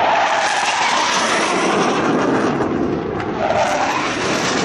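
Panavia Tornado jet flying low past, its twin RB199 turbofans making loud, steady jet noise.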